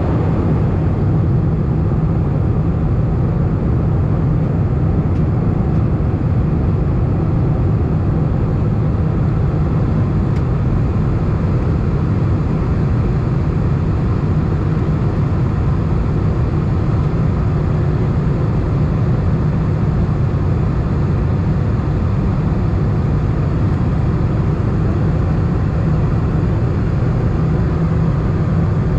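Cabin noise of an Airbus A319 in flight, heard from a seat over the wing: a steady, deep drone of the jet engines and rushing air, with no change in level.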